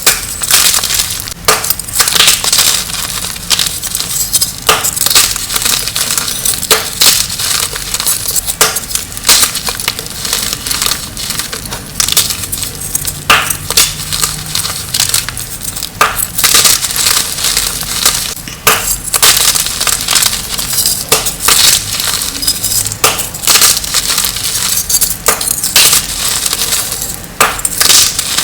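Dyed gym chalk being crushed: continuous crisp crunching and crumbling, with many sharp cracks.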